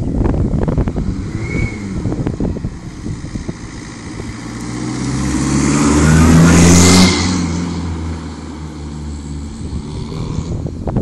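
Peugeot 306 hatchback passing close by: its engine and tyre noise build from about four seconds in, peak around six to seven seconds, drop off suddenly and then fade away. Wind buffets the microphone in the first few seconds.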